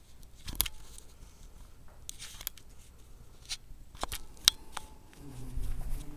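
A few irregular sharp clicks and crunches, the loudest about four and a half seconds in, over a low rumble that grows louder near the end.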